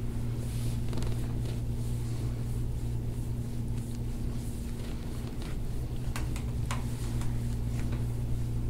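Steady low mechanical room hum with a couple of faint sharp clicks about six seconds in.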